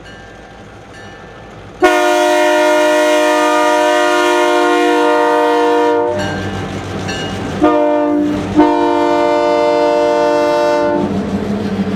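Diesel locomotive's multi-chime air horn sounding a long blast, a short one, then another long one, the pattern of a grade-crossing warning, with the locomotive's engine and wheels rumbling beneath as it passes.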